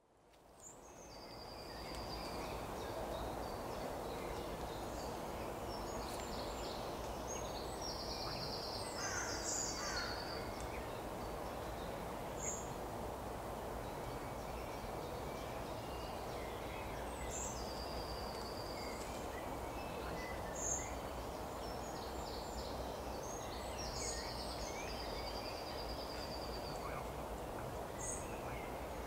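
Outdoor woodland ambience fading in over the first two seconds: a steady low rush of background noise with small birds singing short chirps and trills every few seconds.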